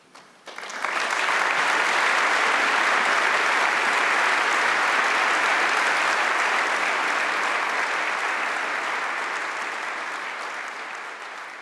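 A large audience applauding: the clapping starts under a second in, quickly swells to a steady, dense applause, and eases off slightly near the end.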